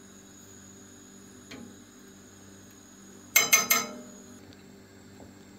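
A metal spoon and a glass salt jar clinking, about four quick light clinks a little past halfway through, over a faint steady hum.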